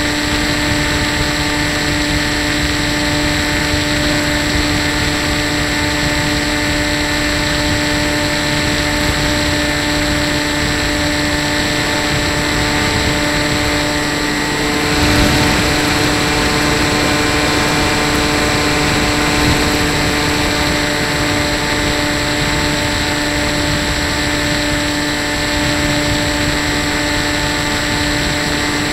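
Electric RC model plane's motor and propeller, heard from its onboard camera: a steady whine with a strong low hum and several higher tones, over rushing wind noise. The wind noise swells briefly about halfway through.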